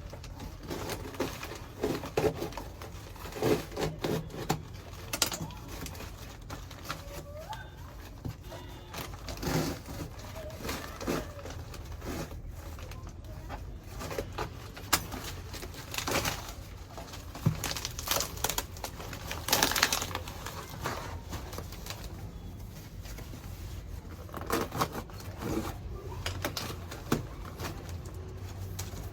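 Plant-delivery packaging being handled and opened: irregular crinkling, rustling and tearing with scattered clicks.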